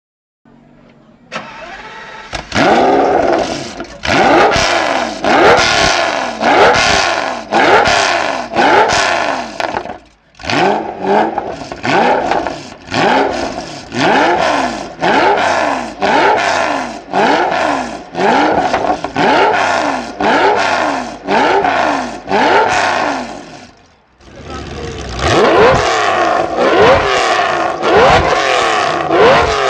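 Pagani Zonda S V12 revved hard at a standstill through its central four-pipe exhaust, each blip rising and falling in pitch about once a second, in three runs broken by two brief pauses.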